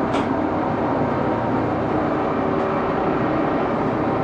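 Axelson engine lathe running at 628 RPM under power feed, its spindle and feed gears giving a steady whir, turning an aluminum part with a high-speed-steel tool. A light click sounds just after the start.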